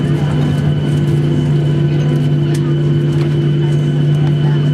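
Cabin noise of a Boeing 737-800 with its CFM56-7B jet engines running at low power as it rolls slowly along the runway after landing: a loud, steady hum made of constant low tones, with no rise or fall.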